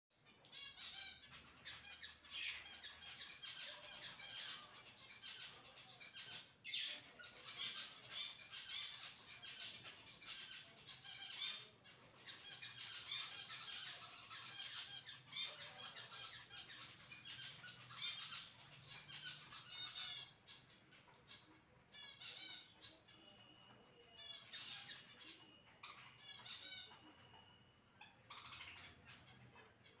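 A flock of budgerigars chattering and warbling: a dense stream of quick, squeaky chirps. About twenty seconds in it thins to scattered chirps, with a steady high note held for a few seconds near the end.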